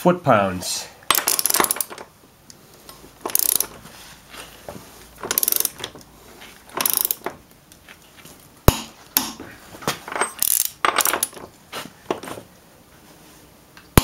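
Torque wrench ratcheting on the rear axle nut of a Yamaha FZ6 as the nut is tightened to 85 ft-lb. Short runs of rapid ratchet clicks come every second or two as the handle is swung back between pulls, with one sharp single click a little past the middle.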